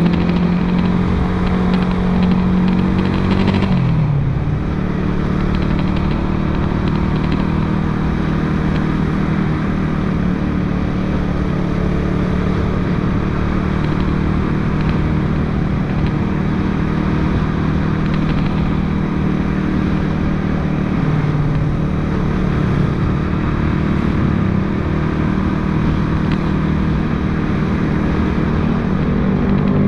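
Motorcycle engine running while riding, its note falling about four seconds in as the rider eases off, then holding steady.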